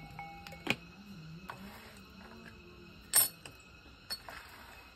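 Clinks on the glass of a siphon coffee maker as the brewing paddle and lid are handled, with a short ringing clink near the start and one sharp, loud clink about three seconds in as the lid is set on the upper chamber.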